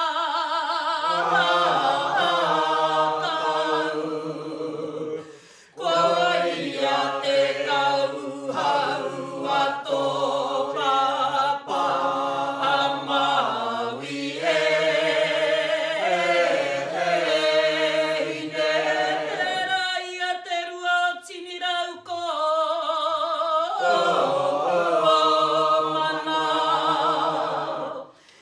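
A group of voices singing a Tūhoe mōteatea, a traditional Māori chant, unaccompanied. The lines are long, held and wavering, with a few short breaks between phrases.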